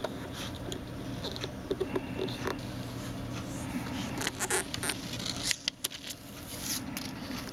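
Fingers handling a plastic screen protector film on an iPhone 5's glass screen: scattered light clicks and rustles of the film and fingertips, a few sharper clicks in the middle, over a low steady hum.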